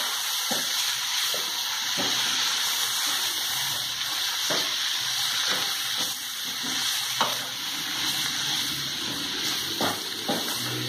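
Boneless chicken pieces sizzling steadily in oil in a frying pan on a low flame, stirred with a wooden spatula. The spatula knocks and scrapes against the pan about eight times, scattered through the sizzle.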